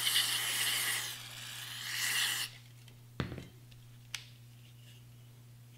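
Aerosol can of non-chlorinated brake parts cleaner spraying through its straw into an AR-15 lower receiver's trigger mechanism to flush out carbon: a steady hiss that stops about two and a half seconds in. Then a single knock and, a second later, a light click.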